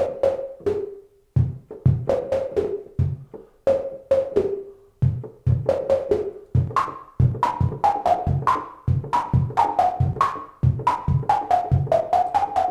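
Drum-like hits from a modular synthesizer: noise from a Q110 noise generator through a filter with its resonance all the way up, the output gated by a keyboard-triggered envelope, so each key gives a short percussive hit with a ringing pitched tone. The pitch follows the key played: it sits low at first, jumps higher about seven seconds in, then steps back down, and the hits come faster in the second half.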